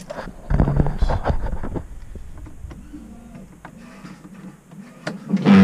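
A small 12-volt windscreen washer pump whirring as it sprays fluid onto the windscreen, starting with a louder rush about half a second in and then settling to a steadier run. Music with a deep bass comes in near the end.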